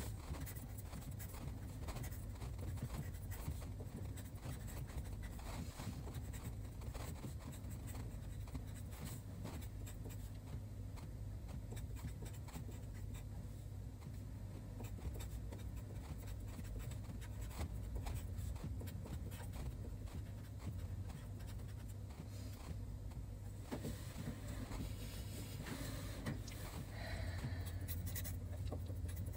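Marker pen writing Chinese characters on paper: a run of short, light scratching strokes, over a steady low hum.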